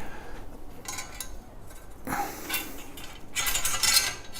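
Metal frame parts of a compost tumbler stand clinking and scraping against each other as they are handled and fitted together, in a few irregular clattering bursts.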